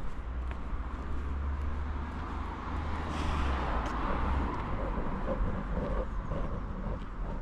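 A motor vehicle drives past on the road: a low engine rumble and tyre noise that swell to a peak about three to four seconds in, then fade.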